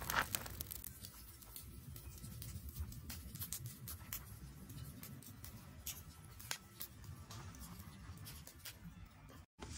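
Lump charcoal burning in a metal fire box, flames rising from the coals: scattered small crackles and pops over a low background rumble, with a brief louder noise right at the start.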